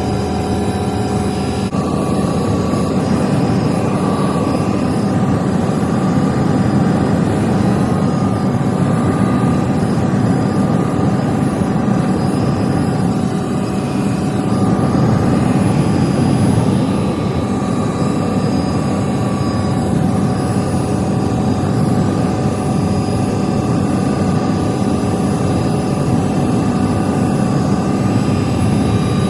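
Tour helicopter running steadily: constant rotor and engine noise with a thin steady whine over it.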